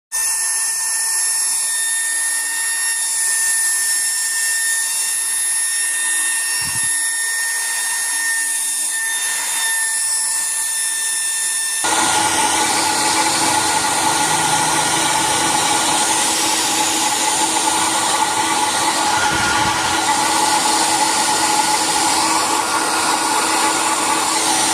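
Hair dryer switched on and running steadily on its newly fitted replacement motor, a high whine with a rush of air, working properly after repair. About halfway through the sound changes abruptly and gets a little louder, with a different whine.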